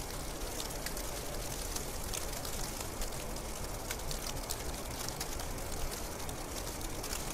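Steady hiss of a snowfall, speckled with many small, quick ticks of snow landing.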